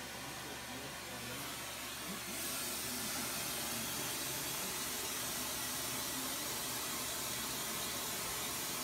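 Glassworking hand torch flame hissing steadily as it heats glass on a glass lathe, growing louder about two and a half seconds in.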